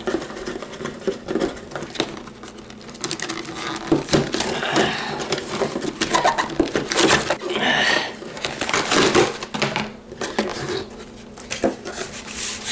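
A cardboard box and its packing being opened and handled by hand: scraping, rustling and frequent small knocks.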